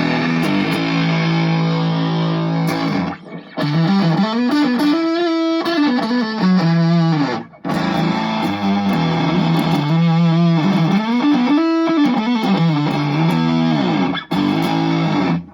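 Electric guitar played through a KVFX Skuzz Box fuzz pedal into an Egnater Tweaker 15 tube amp, giving a heavily distorted riff. The riff is a held low chord followed by a run of bent, sliding notes, and it is played twice with short breaks between.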